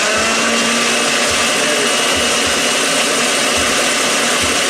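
Electric blender running steadily, mixing a curry marinade that has just been thinned with extra oil and white wine.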